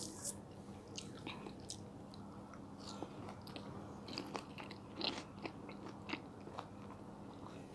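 Close-miked eating of mandarin orange segments: the segments pulled apart and chewed, giving many short, irregular clicks and crunches.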